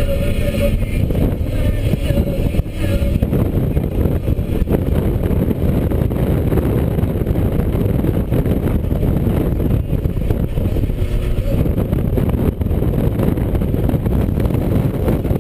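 Inside the cabin of a 2013 Scion FR-S at speed: its 2.0-litre flat-four engine running under a steady, loud wash of road and wind noise, with the engine tone standing out more clearly in the first few seconds.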